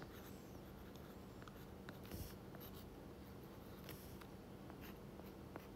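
Faint taps and scratches of a stylus writing on a tablet's glass screen, over a faint steady hum.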